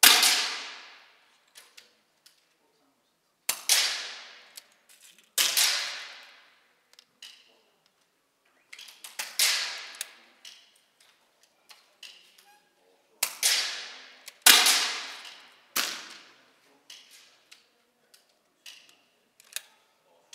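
Shots from a Daystate Red Wolf .177 pre-charged pneumatic air rifle: about six sharp cracks, each ringing off over about a second in an indoor range, with small clicks in between.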